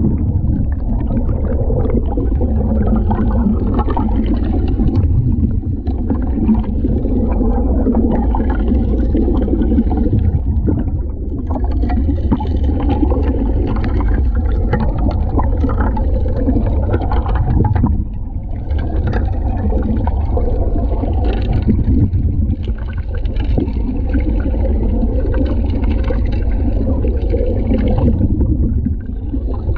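Gold suction dredge heard underwater at the nozzle: a steady low drone from the dredge, with water and gravel rushing and rattling into the suction intake, the rushing rising and falling every few seconds.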